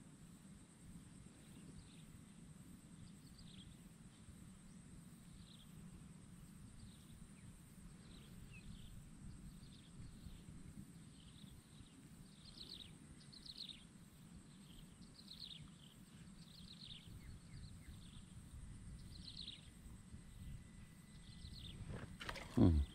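Faint outdoor background with a bird's short, high, falling chirps repeating about once a second. Near the end comes a sudden loud splash at the water surface as a hooked snakeskin gourami is struck.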